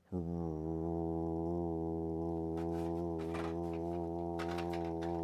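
A man's voice holding one long, steady, low 'rrr' on a single breath: the drawn-out opening of the word 'Roadster'. A few light clicks of blister-pack toy cards being handled come through from about halfway in.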